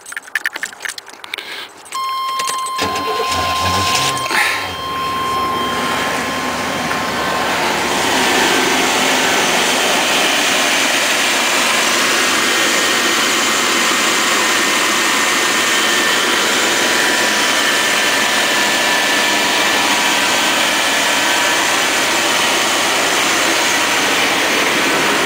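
A few clicks, then about two seconds in the 1993 Chevy Silverado's 305 small-block V8 cranks and starts. It revs briefly and settles into a steady idle, heard up close at the open engine bay.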